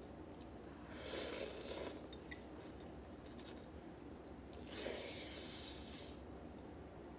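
Ramen noodles being slurped: two long slurps, about a second in and again near five seconds, with faint small chewing clicks between them.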